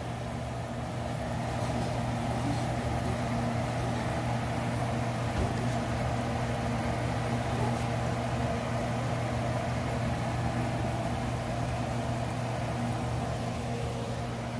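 Steady low mechanical hum with a rushing band above it, unbroken throughout and a little louder from about two seconds in.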